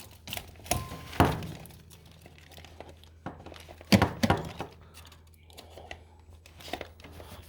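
Handling knocks and clunks as a laptop charger's plug and lead are pushed into a wall socket, a few sharp knocks spread out with the biggest about a second in and again about four seconds in. A brief steady beep sounds just before the first big knock.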